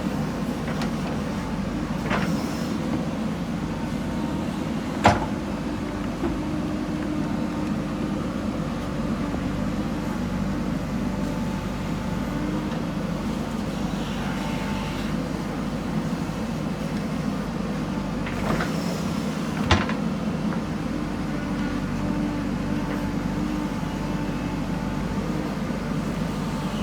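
JCB 3DX backhoe loader's diesel engine running steadily under work. A few sharp metallic knocks break through, the loudest about five seconds in and another pair near the twentieth second.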